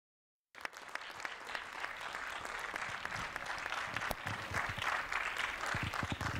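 Audience applauding, many hands clapping; it starts abruptly about half a second in.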